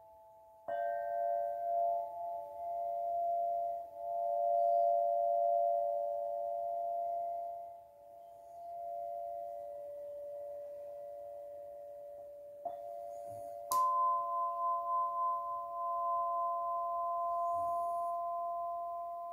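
Crystal singing bowls ringing. One is struck about a second in and rings on with several steady tones that slowly swell and fade. A second, higher-pitched one is struck about two-thirds of the way through and joins it with a faster pulsing wobble.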